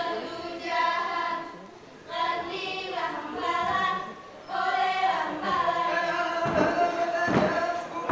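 Unaccompanied group singing of an Acehnese seated-dance song, sung in phrases with short pauses, with two thumps near the end.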